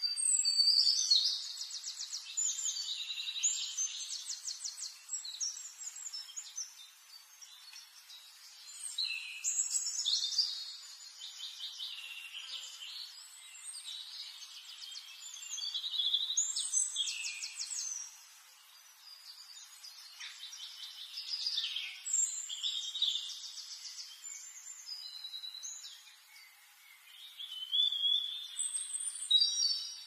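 Small aviary finches chirping and singing in repeated bursts of rapid, high-pitched buzzy notes, each burst lasting a few seconds, with quieter chirps in between.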